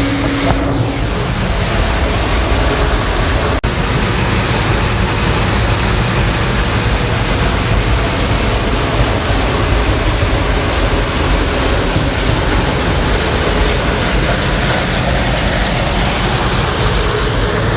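Gleaner M3 combine harvesting corn: the steady, loud, dense running noise of the combine's engine and threshing machinery. There is one very brief dropout about three and a half seconds in.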